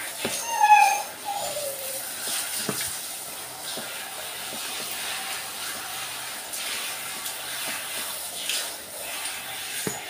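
Handheld shower sprayer running steadily, water hissing onto a wet dog's coat and the shower floor. Near the start there is one short high-pitched cry that falls in pitch, the loudest sound.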